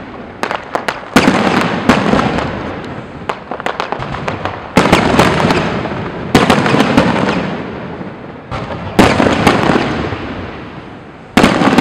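Aerial fireworks shells bursting overhead: about six loud booms, each rolling away over a second or two, with smaller pops and crackles between them.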